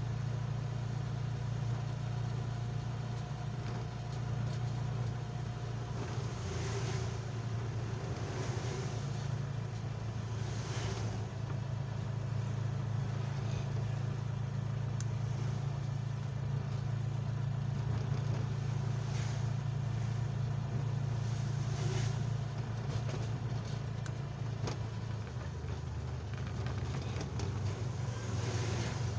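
Engine running steadily with a low drone, heard from inside a moving vehicle's cab, over the hiss of tyres on a wet road. Several short hisses rise and fade now and then.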